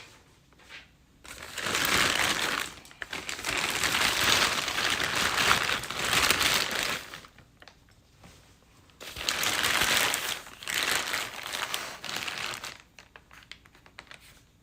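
Plastic clay bag crinkling as it is handled, in two long stretches of rustling with a short pause between.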